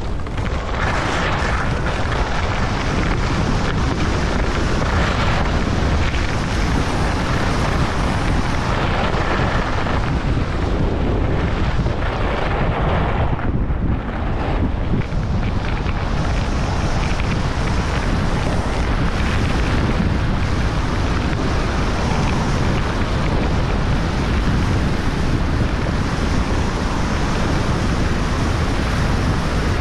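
Wind buffeting a GoPro Hero11's microphone during a fast downhill ski run, a loud steady rush with a heavy low rumble. Skis hiss and scrape over packed snow, strongest in the turns during the first half.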